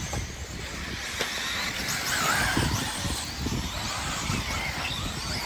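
Electric motors of several 1/10-scale off-road RC buggies whining as the cars race past, the pitch sweeping up and down as they accelerate and brake.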